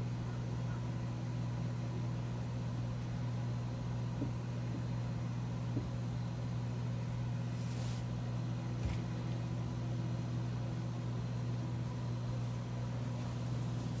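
Powerful electric fan running with a steady low hum, with a couple of faint clicks in the middle.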